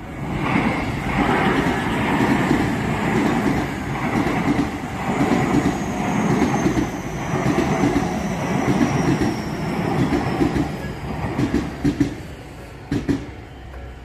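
A Tobu Tojo Line electric train passing over a level crossing: wheels clattering in a steady rhythm over the rail joints, with a faint high whine that slowly falls in pitch through the middle and a few sharp clacks near the end as the last cars clear. The crossing's warning bells ring faintly beneath.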